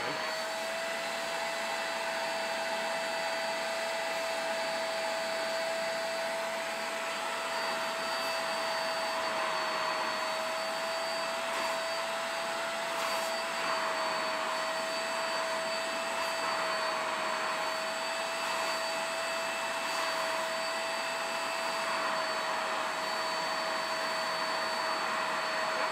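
Vax Spotwash spot cleaner's suction motor running steadily with a constant whine, its hand tool drawn over a wet fabric sofa arm to suck up the cleaning solution.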